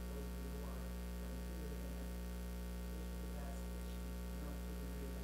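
Steady electrical mains hum on the meeting-room sound system, with faint voices in the room now and then.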